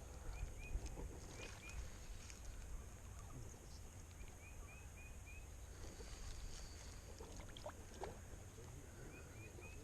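Faint outdoor ambience by a pond: a steady low rumble, with several runs of three or four short, high, slightly rising chirps and a few faint clicks.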